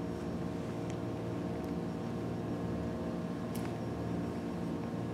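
A steady mechanical hum holding several constant tones, with a few faint ticks.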